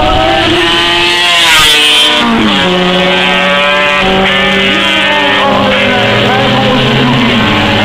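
Racing motorcycles passing at speed on a road circuit, engines at high revs. One bike goes by close, loudest about two seconds in, its pitch dropping sharply as it passes, and others follow at steady revs.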